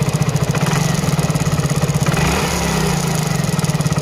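Motorcycle engine idling with a rattling noise from the timing chain area, still there after a new timing chain was fitted. The mechanic traces it to a wrong bolt fitted near the chain.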